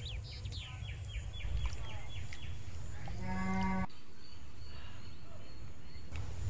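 A cow moos once about three seconds in, a single call just under a second long that cuts off abruptly. Before it, small birds chirp in quick high runs, over a steady low rumble.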